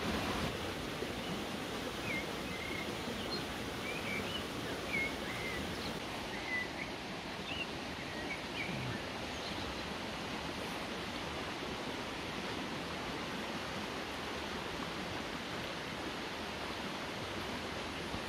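Steady rush of running water, with faint short bird chirps now and then in the first half.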